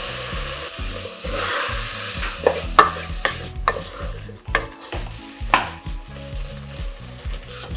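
Wooden spatula stirring basmati rice in an aluminium pot, knocking and scraping against the metal several times, the loudest knock about three seconds in. Under it the rice sizzles as it fries, freshly wetted with strained meat sauce, the hiss fading over the first second or so.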